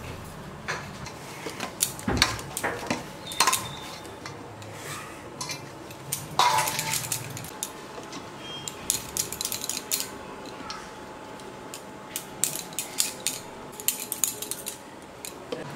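Metal kitchen utensils clattering: irregular clinks, knocks and scrapes of a spoon against pots and dishes, the loudest about six seconds in with a short ring.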